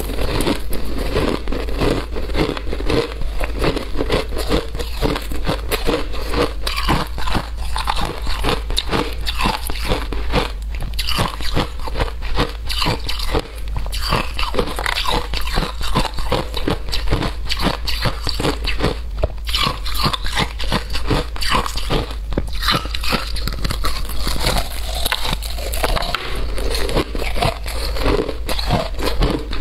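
A person biting and chewing a block of frozen shaved ice: loud, rapid, continuous crunching, over a steady low hum.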